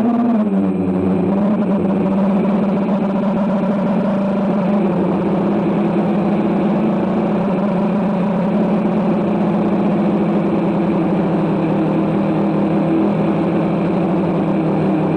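DJI quadcopter's motors and propellers buzzing steadily in flight, the pitch gliding down about a second in and then holding.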